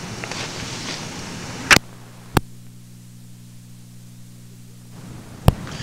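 Clicks of a cassette tape recorder being stopped and started between two recordings, with a steady mains hum between the clicks and tape hiss before them. A click comes nearly two seconds in, another shortly after, and a third near the end.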